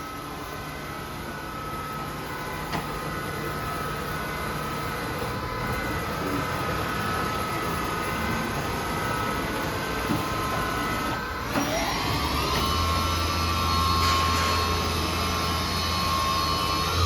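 Hardinge Bridgeport 1000 XP3 CNC vertical machining center running: a steady multi-tone whine that breaks off about eleven seconds in, then rises to a new steady pitch with a low hum underneath as the spindle changes speed.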